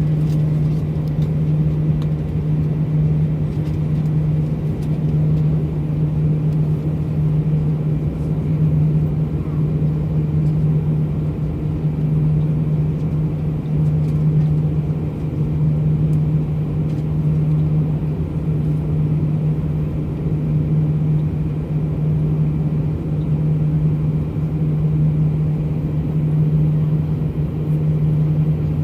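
Airliner cabin noise heard from inside the passenger cabin: a steady low drone of engines and airflow that holds constant throughout.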